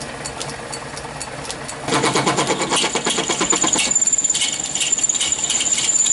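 Small metal lathe running with a brass bar spinning in its collet chuck. About two seconds in, the cutting tool bites into the brass with a rapid rattle of ticks, and from about four seconds the cut settles into a steady high-pitched squeal.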